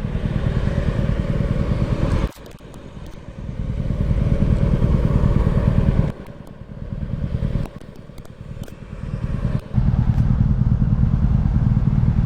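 Honda Super Cub's single-cylinder four-stroke engine running on the move, with a rough low rumble of engine and wind on the mic. The sound drops off about two seconds in and again for a few seconds in the middle, as if easing off the throttle, then comes back strong near the end.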